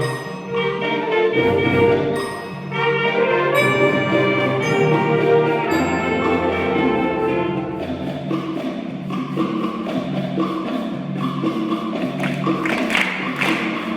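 Concert band playing, with held chords from the winds for the first half and a more rhythmic passage with regular percussion hits from about eight seconds in.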